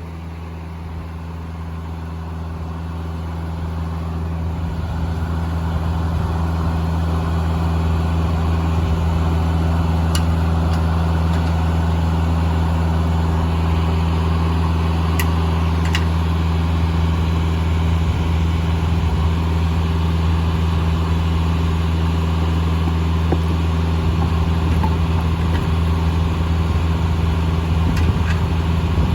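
Engine driving a Foley Belsaw circular sawmill, running with a steady low hum that grows louder over the first several seconds and then holds.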